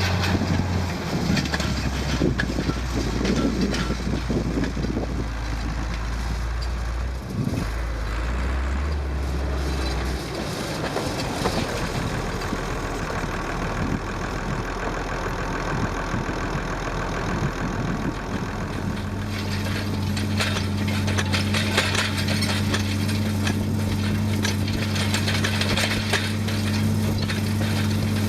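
Massey Ferguson 2705 tractor's diesel engine running steadily. Its note shifts a few times in the first half, then settles into a steady, higher hum for the rest.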